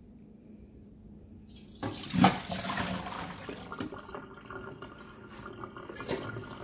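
Water poured out of a stainless steel bowl splashing into a stainless kitchen sink, starting about a second and a half in. A metal bowl clanks once just after the water starts, and again lightly near the end.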